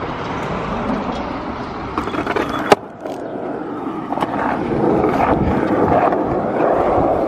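Skateboard wheels rolling on a concrete footpath: a steady rumble with scattered clicks, growing louder in the second half. A single sharp clack about two and a half seconds in is the loudest sound.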